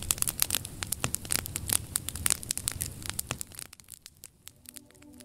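Fire sound effect: dense crackling and popping over a low rush of flames. About three and a half seconds in it drops away to sparse crackles as a soft sustained music tone comes in.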